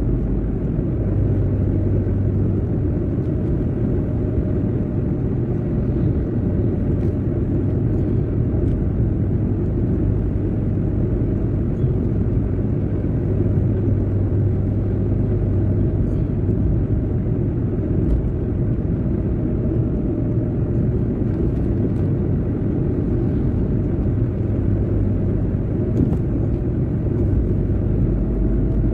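A car's engine and tyre noise while cruising at steady speed: an even, low rumble with a faint steady hum over it.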